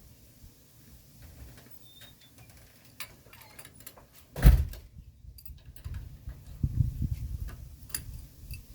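A single loud thump about four and a half seconds in, among scattered light clicks and knocks, with low rumbling handling noise in the second half.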